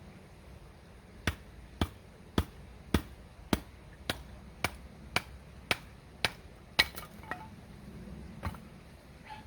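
A hand tool striking repeatedly: about eleven sharp knocks at roughly two a second, then two more spaced-out knocks near the end.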